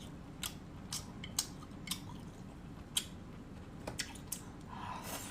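Quiet eating sounds: scattered small clicks and smacks of a person chewing, about seven in five seconds.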